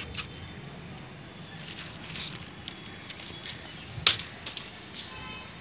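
A paper kite being handled: scattered crinkles and taps from its thin paper and bamboo frame, with one sharp snap about four seconds in as the kite is swung, over a steady background hiss.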